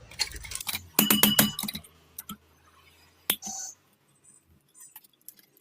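Small metal parts clicking and clinking as they are handled: a cluster of sharp clicks in the first second and a half, then a single metallic knock with a brief ring a little past three seconds.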